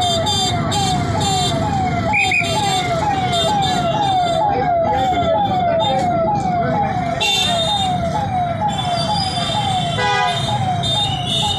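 Electronic siren sounding a quick falling tone that repeats between two and three times a second, over street traffic noise.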